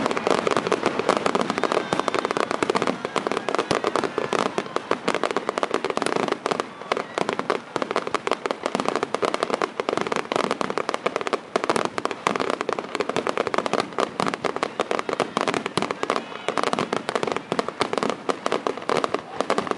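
Finale barrage of aerial fireworks shells: many bangs in quick succession, overlapping without a break.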